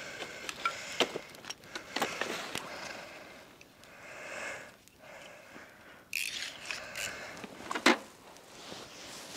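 Wood campfire crackling, with sharp irregular pops and the scrape and knock of firewood being handled on the grate; the sharpest pop comes near the end.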